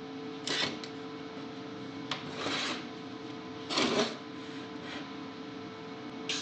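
MIG welder (Lincoln 210 MP) striking short tack welds on a steel T-joint: three brief arc crackles a second or more apart, over a steady hum.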